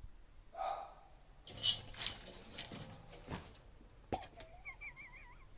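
Two cats confronting each other: a short cat cry, then about a second and a half in a harsh, noisy burst lasting most of a second. A sharp click follows near the end, with a faint warbling whistle after it.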